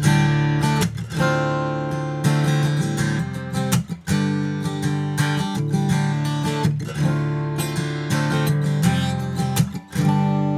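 Acoustic guitar strummed in a steady rhythm of chords, recorded through a large-diaphragm condenser microphone. The strumming pauses briefly at chord changes, and a last chord near the end is left ringing.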